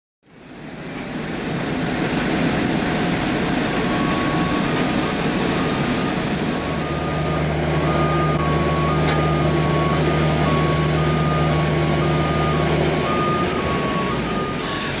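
Steady airport apron noise with a high hiss, and a ground vehicle's two-note warning beep alternating about twice a second from about four seconds in. A low engine hum joins for several seconds in the middle.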